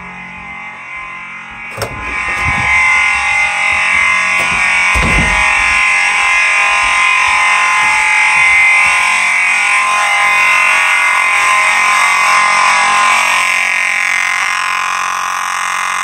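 Faraday mechanical vibrating fire alarm horn (vibratone type) sounding continuously with a harsh, steady, buzzing blare. It is fainter at first and much louder from about two seconds in. Two low thumps are heard, one about two seconds in and one about five seconds in.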